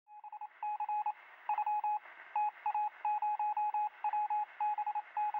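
Electronic beeps of one pitch, keyed on and off in quick runs of short and long beeps like Morse code, over a faint hiss.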